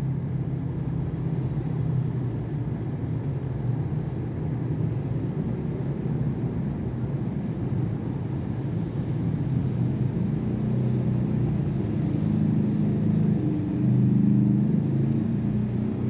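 Panasonic F-EY1511 ceiling fan running at speed: a steady low hum and rumble from its motor and blades.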